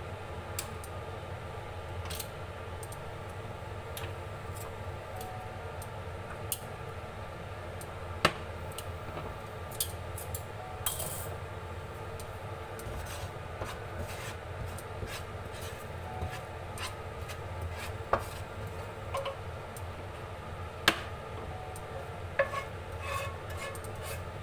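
Wooden spatula scraping and tapping in a nonstick frying pan, stirring and then scraping out sautéed garlic, with a few sharp knocks among the scrapes, over a steady low hum.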